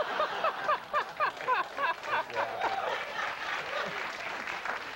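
Studio audience laughing and applauding after a punchline, with one man's repeated laughter standing out over the crowd in the first couple of seconds.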